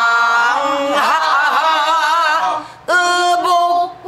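Pansori-style singing: a long, drawn-out sung vowel with a strong wavering vibrato, unaccompanied. It breaks off near three seconds in and a new sung phrase starts at once.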